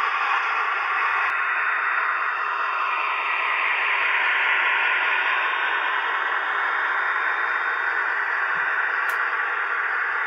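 Dapol Class 68 model locomotive's DCC sound decoder playing its diesel engine running sound through the model's small onboard speaker as it moves: a steady, hissy drone.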